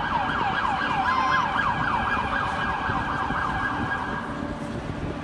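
Emergency vehicle siren in a fast yelp, its pitch sweeping quickly up and down about three times a second, then cutting off about four seconds in.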